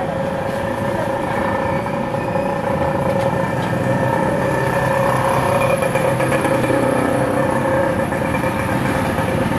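Steady street noise of running engines, with a held hum under it, growing a little louder in the middle and easing off near the end.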